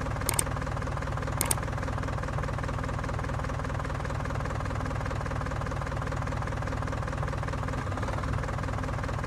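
Tractor engine running steadily with a fast, even chugging as the miniature tractor hauls a loaded trolley. Two faint short clicks sound early, about a second apart.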